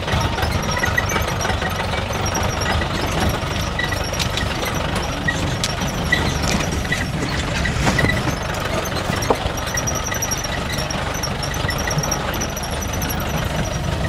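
Mahindra Bolero SUV driving slowly over a rough, rutted dirt track: a steady low engine and road rumble, with the body and suspension rattling and squeaking and an occasional knock as it bumps over ruts.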